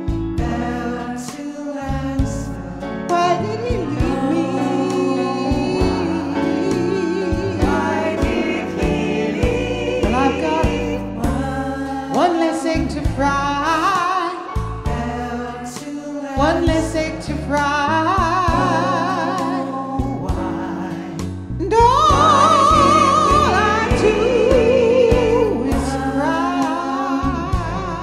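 Music: a woman singing a slow pop ballad over instrumental accompaniment with choir-like backing. In the second half she holds long notes with vibrato.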